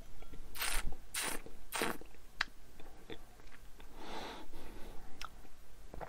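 Mouth sounds of tasting whisky from a glass: three short slurping sips in the first two seconds, then small wet mouth clicks as the spirit is worked around the mouth, and a soft breathy hiss about four seconds in.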